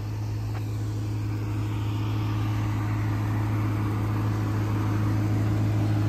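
A car engine idling: a steady low hum that grows slightly louder toward the end.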